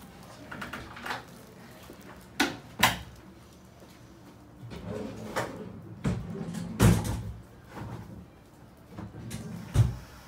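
Handling noise: rustling, with several sharp knocks scattered through, the loudest a little past the middle.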